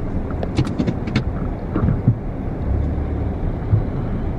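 Steady low rumble of a car's engine and road noise heard from inside the cabin while driving slowly. A few sharp clicks come about half a second to a second in.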